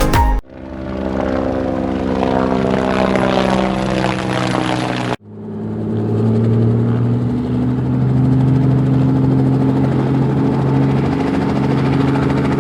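A propeller whirring steadily, heard as two separate stretches with a sudden break about five seconds in. Each stretch swells up over about a second as the spinning builds.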